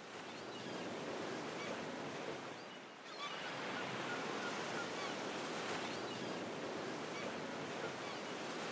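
Ocean surf: a steady wash of breaking waves fading in at the start, easing off and surging again about three seconds in, with faint bird calls scattered over it.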